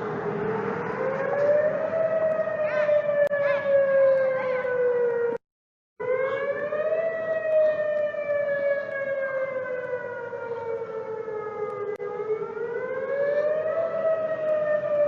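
Warning siren sounding a wail: its pitch rises over about a second, then slides slowly down over about five seconds, and the cycle repeats. The sound cuts out completely for about half a second about five seconds in.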